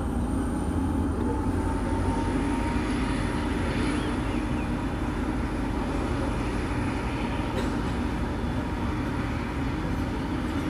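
NJ Transit GP40PH-2B diesel-electric locomotive approaching with its passenger train, the engine running with a heavy, steady rumble. A thin whine rises slightly in pitch over the first few seconds and then holds.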